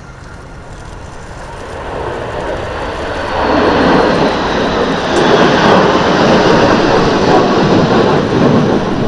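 Pair of Panavia Tornado jets, twin RB199 turbofans each, flying past: the jet noise swells over the first three seconds and stays loud, with a high whine that falls in pitch as they pass.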